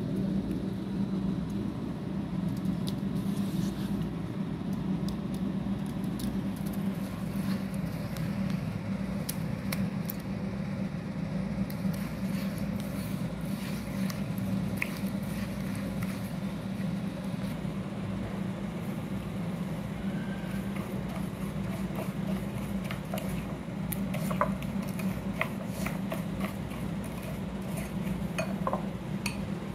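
Wet slate pencil paste being mixed in a glass bowl, squished by hand and stirred with a plastic spoon, with scattered light clicks and clinks against the glass over a steady low hum.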